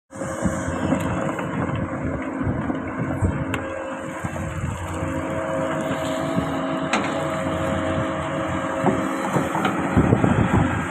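Hydraulic excavator running on a steady engine note, with a few sharp clicks and a louder rough stretch near the end.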